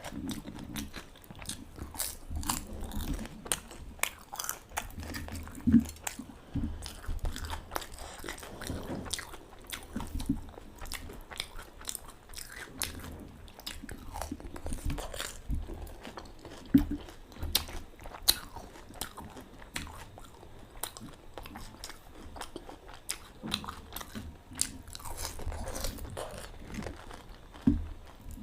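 Pani puri being bitten and chewed: the crisp fried puri shells cracking and crunching between the teeth in irregular crunches, with chewing in between and a few sharper crunches along the way.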